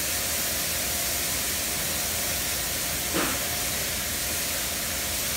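Touchless in-bay car wash gantry spraying cleaning chemical onto an SUV: a steady hiss of spray on the body. About three seconds in comes one short, falling squeak.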